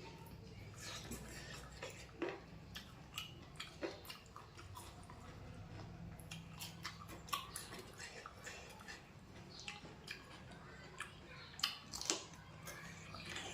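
A person chewing and biting into chicken leg pieces, with irregular wet mouth clicks and smacks, over a faint steady low hum.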